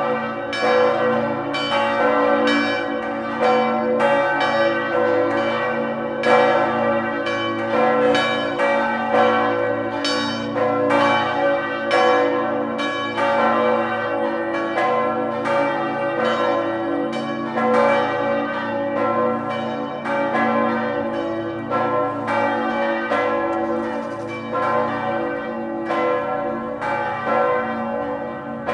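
Several church tower bells ringing together in a full peal, strikes following one another quickly and overlapping, with the bells' long hum sustained beneath.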